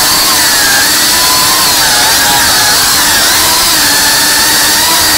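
FPV drone's brushless motors and propellers whining at high pitch, the pitch wavering up and down as the throttle changes.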